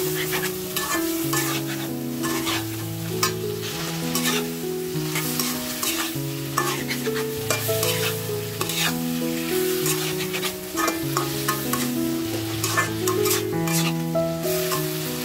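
A metal spatula stirring and scraping chicken curry around a karai, with short scrapes and clicks against the pan and the sizzle of frying. Under it runs background music: a slow melody of held notes.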